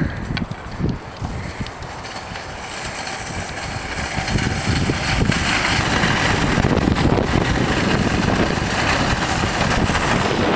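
Shopping cart rolling fast downhill on pavement: wheels rattling over the ground with wind rushing over the microphone, growing louder from a few seconds in as the cart picks up speed.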